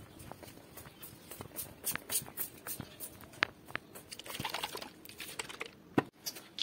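Quiet handling of a plastic bottle: scattered small clicks and taps with a brief rustle about four and a half seconds in, and a sharper knock about six seconds in.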